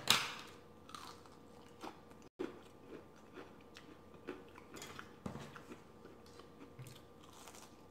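A person biting into and chewing crisp deep-fried battered seafood close to the microphone: a loud crunchy bite at the start, then soft, scattered crunches and mouth sounds as the chewing goes on.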